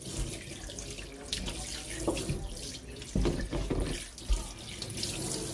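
Kitchen tap running into a stainless steel sink while a raw whole chicken is rinsed and rubbed under the stream. There are a few dull knocks a little past the middle.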